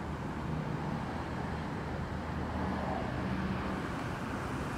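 Steady city road traffic: a continuous low rumble of passing vehicle engines and tyres.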